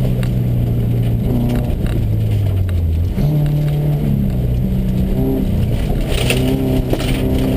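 Subaru rally car's boxer engine heard from inside the cabin as the car slows for a corner: the revs fall, pick up sharply about three seconds in, then keep rising and falling with the throttle over constant road noise.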